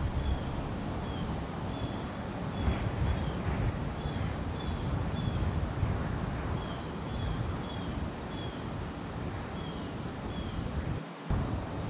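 Wind blowing on the microphone, a steady low rumble with a hiss of moving air. Over it, short high chirps repeat about every half second.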